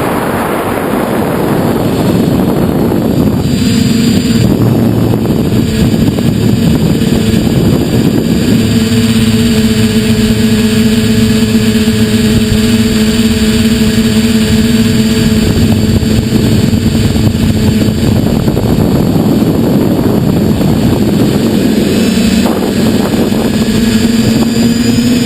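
TBS Discovery quadcopter's brushless motors and propellers running steadily in flight, a constant hum over rushing air noise. Near the end the hum's pitch drops slightly, then rises again.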